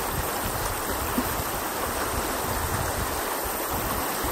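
Steady rush of a shallow, stony river flowing over a riffle.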